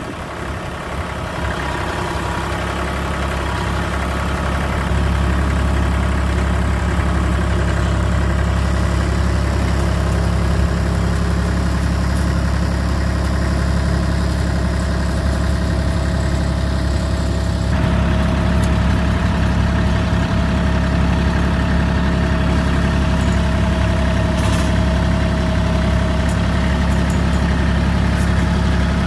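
Bad Boy compact tractor's engine running at a steady speed, growing louder over the first few seconds as the tractor moves off. Its sound changes abruptly about two-thirds of the way through, then carries on steady.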